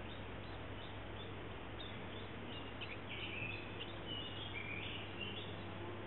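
A small songbird calling in a string of short, high chirping notes, starting about a second and a half in and thinning out near the end, over a steady background hiss.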